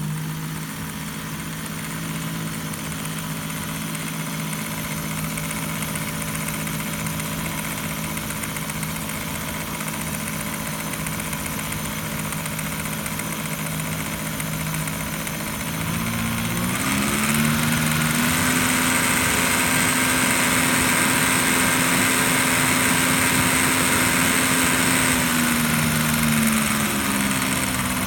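Elmo SP 8mm film projector running with an unusual, 'funny' steady hum. About two-thirds of the way through, the hum rises in pitch and gets louder, with a higher whine added, then drops back near the end.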